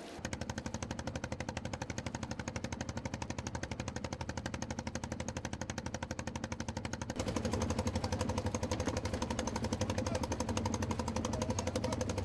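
A fishing boat's engine running with a rapid, even knocking beat, louder from about seven seconds in.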